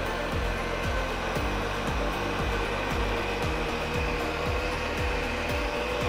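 Electric countertop blender running at speed, blending a thick mango smoothie, with a steady motor whine.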